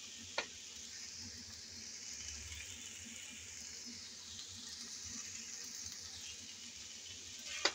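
Stir-fried rice noodles sizzling faintly and steadily in a frying pan, with a short utensil click about half a second in and another near the end.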